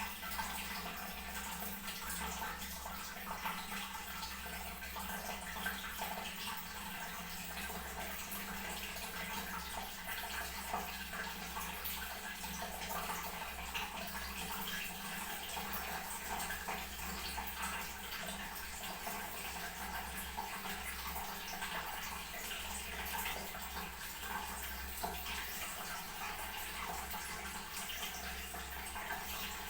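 Toilet tank refilling, water running in steadily.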